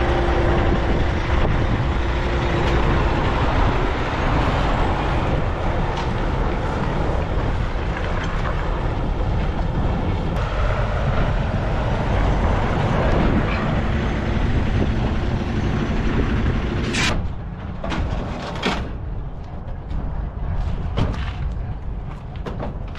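Heavy diesel truck running and pulling away close by, a loud, low rumble that drops off sharply about seventeen seconds in. A few scattered clicks and knocks follow.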